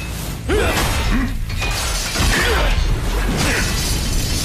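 Animated-combat sound effects of ice shattering and crackling as a flaming fist clashes with an ice attack, over a steady deep rumble.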